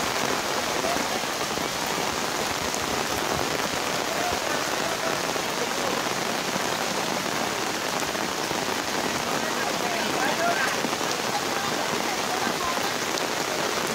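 Heavy rain falling steadily on roof tiles and floodwater, a dense, even hiss.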